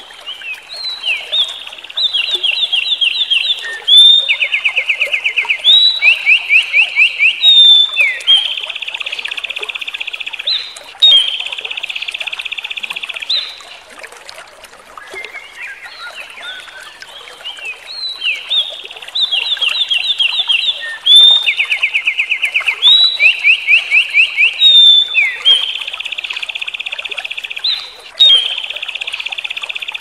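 A small songbird singing a long song of rapid trills at several different pitches, each trill held for a second or two. The song runs about thirteen seconds, breaks off briefly near the middle, then repeats.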